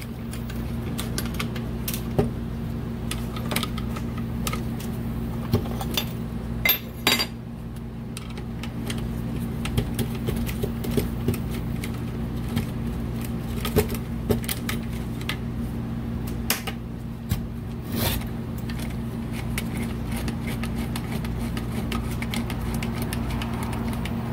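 Metal hand tools clinking and clicking against the heater core's valve and tube fittings, in scattered irregular taps with a louder cluster about seven seconds in and another near eighteen seconds. A steady low hum runs underneath.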